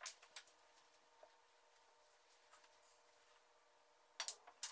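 Snooker balls clicking: a cue tip striking the cue ball and balls knocking together, in two groups of sharp clicks, one at the start and one about four seconds in.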